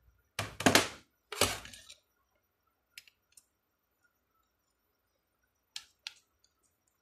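A flat screwdriver working against the metal rectifier end of a Lexus LS 430 alternator: two loud, harsh metal scrapes close together, then a few light clicks.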